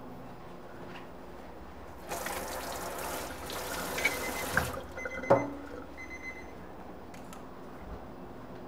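Water running from a kitchen tap for about two and a half seconds, then a sharp knock.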